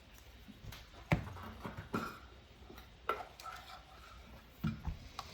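Scattered clicks and rustles of Pokémon booster packs and trading cards being handled and opened, the sharpest snap about a second in.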